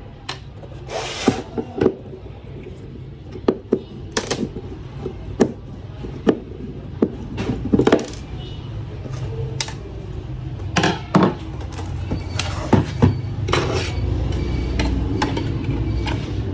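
Tools and hands taking apart an LCD monitor: irregular clicks, knocks and scraping of plastic and metal parts. A steady low hum grows louder near the end.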